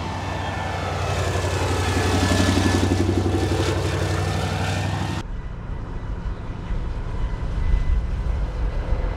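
Engine and tyres of a heavy wheeled armored vehicle driving past close by, getting louder and then easing off. About five seconds in the sound cuts to a duller low rumble of vehicles heard from inside a car.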